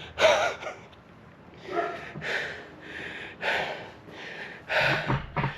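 A man breathing hard after a weightlifting set: deep, noisy breaths in and out, about one every second or so, as he recovers from the exertion.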